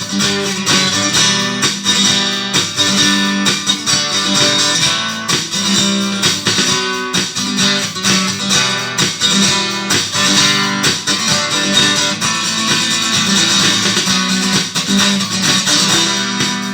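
Guitar music, strummed in a steady rhythm without singing: an instrumental passage of the song.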